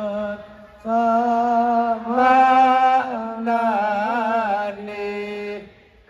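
Sholawat, an Islamic devotional song, sung by a lead voice over a PA system in long, held, wavering phrases. There is a short break about half a second in and another near the end.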